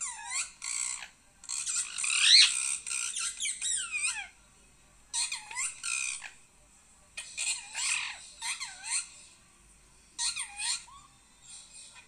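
Parrot calling: squawks and chirps that bend sharply up and down in pitch, in five short bouts with brief pauses, loudest about two seconds in.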